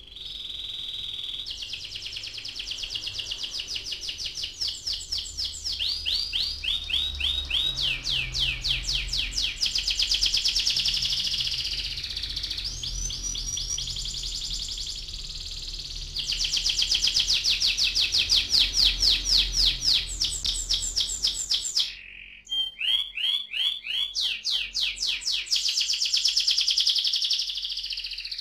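Domestic canary singing a long song of fast rolling trills ('ngerol'), runs of rapidly repeated sweeping notes that change from phrase to phrase, with a short break about three-quarters of the way through.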